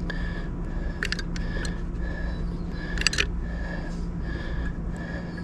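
Caulk gun being squeezed to lay self-leveling lap sealant along a seam, giving a few sharp clicks. Behind it run a steady low hum and a short high tone repeating about twice a second.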